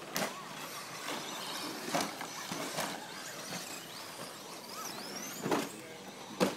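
Radio-controlled short course trucks racing on a dirt track: high motor whines rising and falling as they accelerate and slow, with a few sharp clacks.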